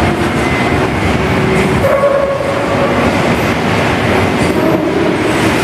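Dravo rotary dumper turning a loaded coal railcar over: a loud, steady mechanical rumble with squealing tones that come and go over it.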